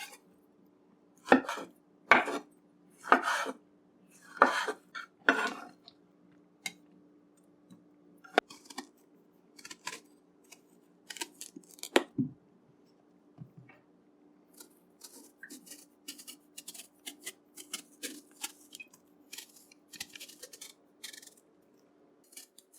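Kitchen knife cutting food on a cutting board: about five loud knocks in the first six seconds, then lighter, quicker knife clicks and scrapes. A faint steady hum runs underneath.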